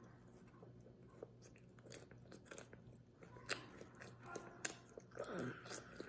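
A person chewing a peanut protein nut bar with mouth closed, faint irregular crunching clicks.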